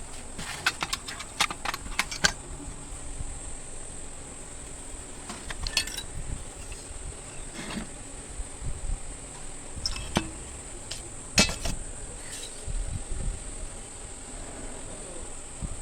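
Scattered sharp clicks and light metallic clinks of small parts and tools being handled, over a steady high-pitched insect chirring.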